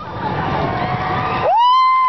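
Fireworks going off with crackling, then a loud whistle about a second and a half in that climbs quickly, holds steady and falls away.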